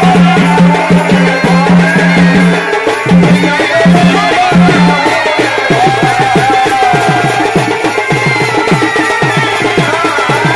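Chhau dance accompaniment of fast, dense drumming under a wavering melody. A low held note sounds at first, breaks up a few times and drops out about halfway through.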